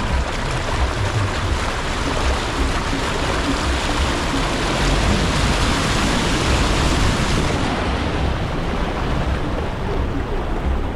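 Steady, loud rush of flowing water. Its high hiss drops away about seven and a half seconds in.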